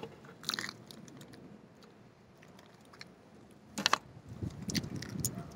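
Handling noise close to the microphone: a few sharp clicks just before the four-second mark, followed by softer scraping and rubbing.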